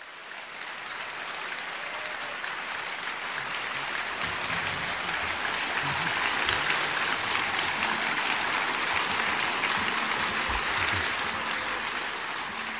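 Audience applauding, building up over the first few seconds and tapering off near the end.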